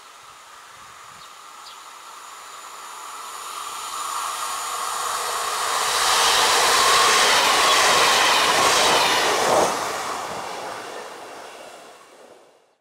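Alstom Coradia iLint hydrogen fuel-cell train passing by: a steady electric whine and wheel-on-rail noise grow louder as it approaches, peak as it goes past, then fade. One sharp knock comes at about nine and a half seconds in, and the sound cuts off suddenly at the very end.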